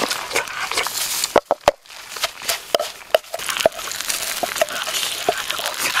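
Wooden pestle pounding peanuts and chillies in a mortar: irregular knocks and crushing, with a few sharp knocks close together about a second and a half in.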